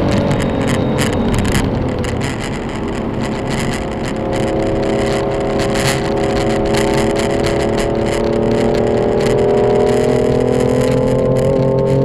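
Car engine running under load: its pitch dips briefly at the start, then climbs slowly and steadily as the car gains speed, with irregular clicking noise over it.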